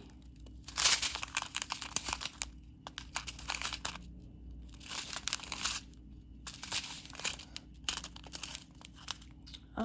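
Small plastic bags of diamond-painting drills crinkling as they are handled and sorted, in several bursts with short pauses between them.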